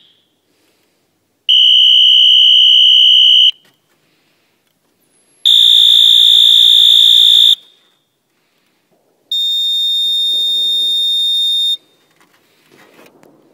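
Electronic fire alarm horns sounding three steady, high-pitched tone blasts one after another. Each lasts about two seconds with about two seconds between them, each is a little higher than the last, and the third is quieter. Faint rustling follows near the end.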